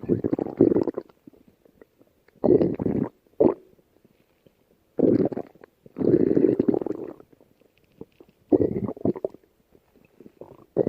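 A hungry person's empty stomach growling in a string of separate rumbles, each half a second to a second long, with short pauses between.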